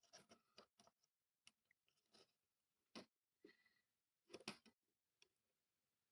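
Faint, irregular small clicks and scratchy crackles from hand work on a small circuit board: components and tools being handled and set down, with a slightly louder cluster about four and a half seconds in.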